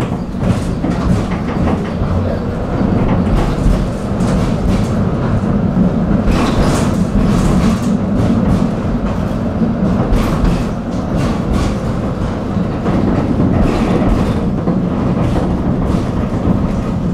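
Tram running on its rails, heard from inside the car: a steady rolling rumble and low hum, with scattered clicks and rattles from the wheels and track.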